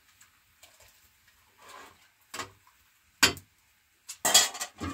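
A few scattered knocks and clicks of objects being handled, with a single sharp knock a little after three seconds in and a louder clatter near the end.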